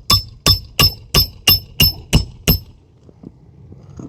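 Hammer driving a roofing nail through a shingle into the roof decking, struck lightly: eight quick ringing strikes, about three a second, stopping about two and a half seconds in, followed by a few faint taps.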